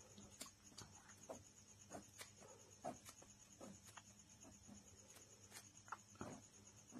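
Near silence: faint, irregular scratches of a ballpoint pen drawing short lines on paper, over a steady low hum and a thin high whine.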